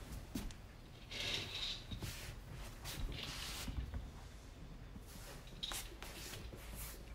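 Faint rustling and scattered soft ticks of a small kitten's footsteps on a wooden floor, with two brief louder patches of fabric-like rustling about a second in and again about three seconds in.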